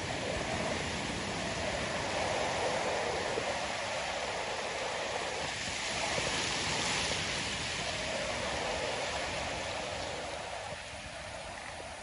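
Ocean surf breaking on the shore: a steady wash of water noise, with one wave crashing loudest about six seconds in and the surf easing off near the end.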